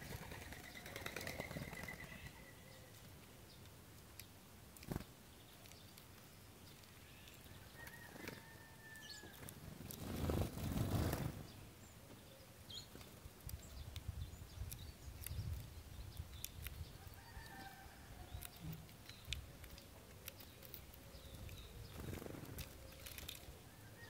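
Faint bird sounds: short chirping calls a few times, scattered light clicks and taps, and a brief louder rush of noise about ten seconds in.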